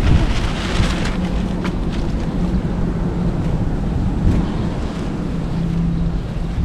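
Wind buffeting the microphone: a steady, low, noisy rumble with a faint hum underneath.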